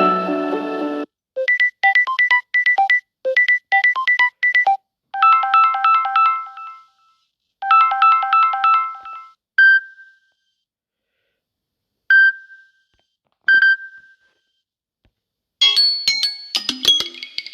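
Samsung Galaxy A23 5G ringtones and notification tones played one after another. A fuller ringtone tune cuts off about a second in, followed by two runs of quick electronic beeps, a short bell-like phrase played twice, three single pings a second or two apart, and a busier chime near the end.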